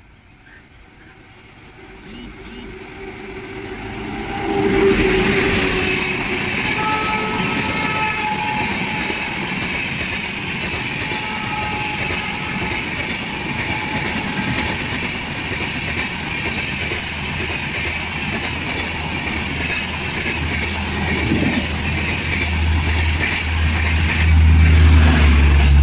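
Jan Shatabdi Express passenger train running through a station at speed. Its rumble builds over about five seconds as it approaches, then the steady rush and clatter of the coaches passing close by goes on, and a deep low rumble grows louder near the end.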